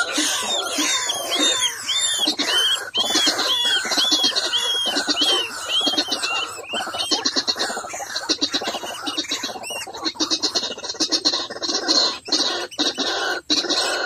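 White-breasted waterhen calls: a run of repeated arching notes, about two a second, through the first half, giving way to fast, raspy chattering.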